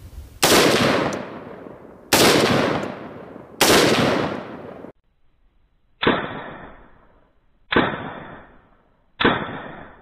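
Short-barrelled PSA AR-15 rifle with a 10.5-inch barrel firing single shots, about a second and a half apart: three sharp reports, then three more that sound duller and cut off in the highs, as picked up by a second camera near the target.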